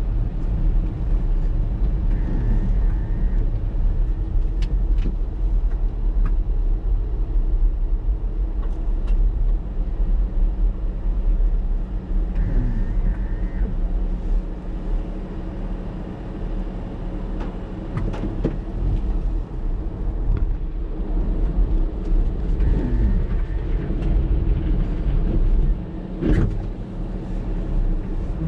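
Typhoon wind and heavy surf making a steady, loud low rumble, with gusts buffeting the microphone and a few knocks.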